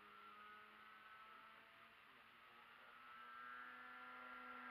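Faint whine of the electric motor and propeller of an Rc-Toy MXS model aerobatic plane in flight, wavering a little in pitch and getting louder over the last second or two.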